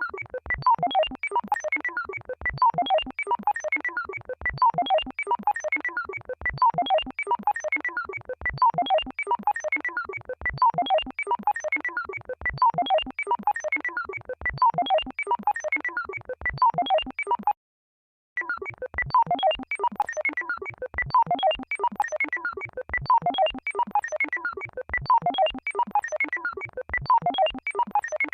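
Emergency alert alarm signal: a fast run of short synthesized beeping notes, repeating its pattern about every two seconds. It cuts out for under a second about two-thirds of the way through, then starts again.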